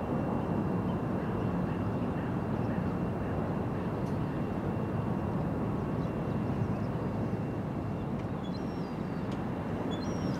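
A steady low rumble with a faint, steady high whine over it, and a few short bird chirps near the end.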